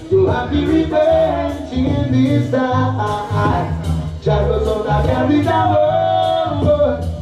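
A song with sung vocals over heavy bass, played loud through a sound system's speaker boxes.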